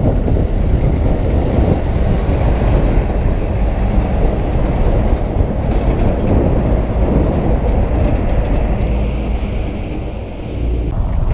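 Wind rushing over a bicycle's handlebar camera on a fast downhill, with a double-trailer semi-truck passing close alongside about halfway through, adding a heavy rumble and tyre hiss that ease off near the end as it pulls ahead.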